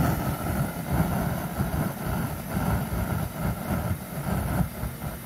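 Homemade 1/2-inch Frosty tee propane venturi burner burning open, a steady rumble of combustion with a light hiss of gas and air, its air choke set to let a little less air through.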